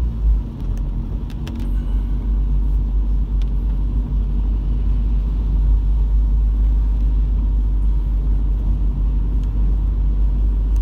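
Steady low rumble inside the cabin of a moving car, engine and road noise as it drives on, with a few faint clicks in the first few seconds.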